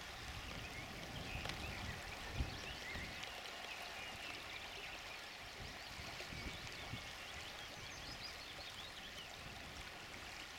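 River water flowing steadily, with faint high chirps over it and a single knock about two seconds in.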